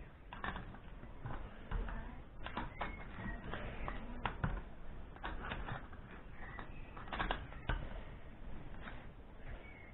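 Irregular clicking and scraping of a small metal hand tool against a Zenith VN carburettor body as it is worked on by hand.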